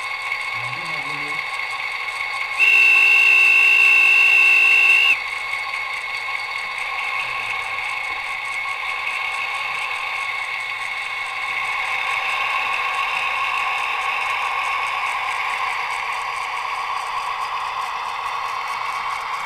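Sound decoder of a Roco HO model of the SNCF BB 67349 diesel locomotive, playing a diesel engine running through the model's small speaker. One horn blast about two and a half seconds long starts a little over two seconds in. The engine sound grows louder from about eleven seconds in as the locomotive pulls its train away.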